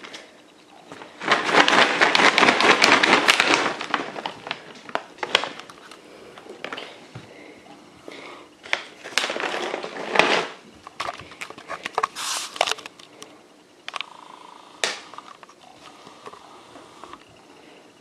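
Crackling, crinkling noise in two loud bursts, one about a second in lasting a few seconds and another near the middle, with shorter sharp crackles and scattered clicks between.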